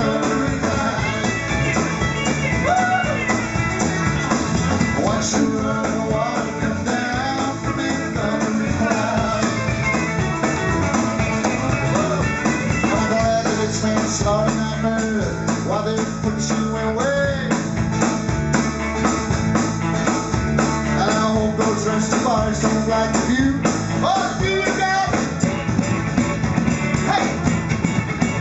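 Live band playing an instrumental break in a bluesy rock song: a guitar lead over a walking bass line and drums.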